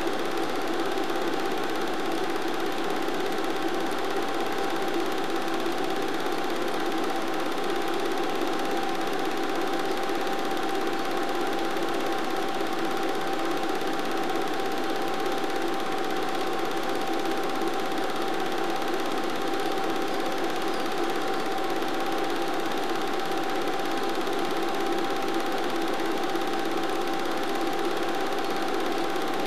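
Film projector running: a steady mechanical whirr with a thin, unchanging whine, unaffected by what the film shows.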